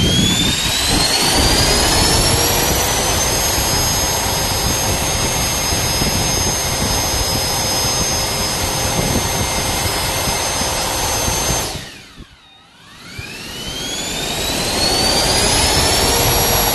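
Handheld battery-powered ducted-fan blower, driven by an RC-aircraft-type motor, running at full speed with a loud whine and rush of air, its pitch still rising for the first few seconds. About 12 seconds in it cuts off and winds down quickly, then spins back up with a rising whine and runs steady again.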